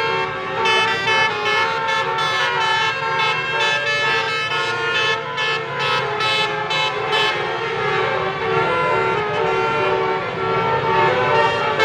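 Tour bus's telolet basuri, a set of musical air horns, playing a tune: quick changing notes for most of the first seven seconds, then longer held notes.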